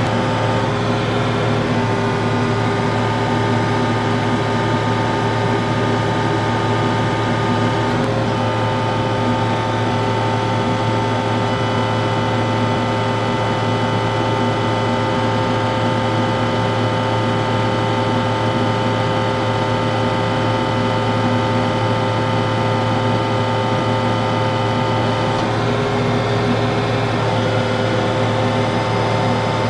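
TYM T654 compact tractor's diesel engine running steadily at raised PTO speed, heard from inside the cab with the air conditioning on. The engine note shifts slightly about 8 seconds in and again near the end.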